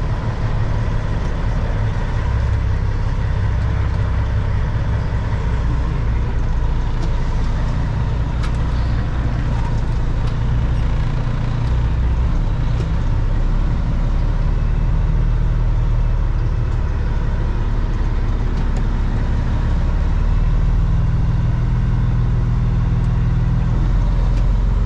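Kenworth W900 semi truck's diesel engine running steadily at low speed, a constant deep drone.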